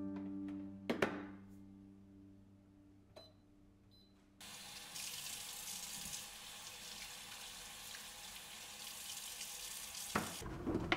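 Kitchen tap running into a sink while a vegetable is rinsed under the stream. The water comes on suddenly about four seconds in and stops near the end with a couple of knocks.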